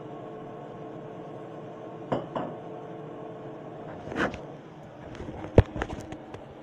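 Kitchen handling clinks and knocks on a counter: two light knocks about two seconds in, another about four seconds in, then a quick run of sharp clicks, the loudest about five and a half seconds in. A steady low hum underneath fades out about halfway through.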